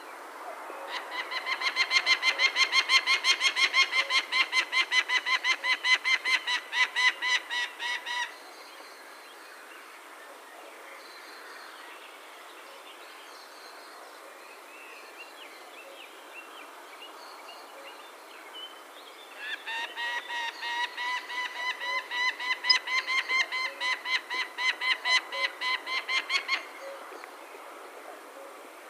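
Peregrine falcon giving its harsh cacking call, a rapid run of repeated 'kak' notes. It comes in two long bouts of about seven seconds each, with a pause of about ten seconds between them.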